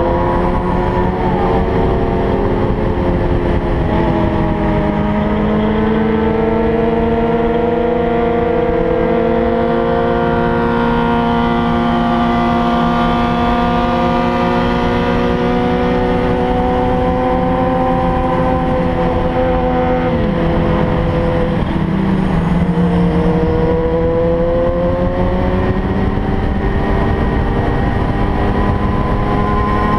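Sport motorcycle engine running at highway cruise, heard from the bike itself with steady low wind rumble. Its pitch climbs slowly, drops sharply about twenty seconds in, then climbs again.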